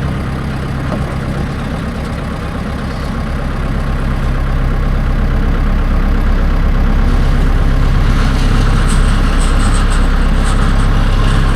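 Heavy farm vehicle's engine running steadily, growing louder from about four seconds in.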